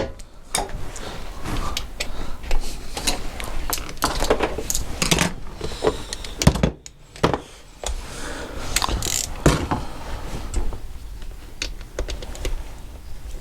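Metal tools and small parts clinking and clattering irregularly on a workbench as they are handled and moved, with short ratchet-like clicking.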